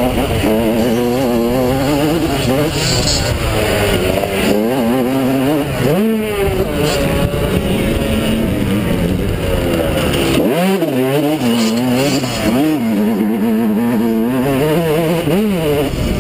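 Yamaha YZ125's 125cc two-stroke single-cylinder engine revving hard while racing, its pitch climbing and dropping repeatedly with the throttle. There is a quick sharp climb about six seconds in and again about ten and a half seconds in.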